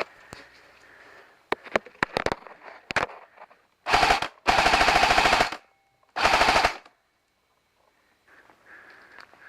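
Airsoft gun firing: a few single shots, then three rapid full-auto bursts, the middle one about a second long.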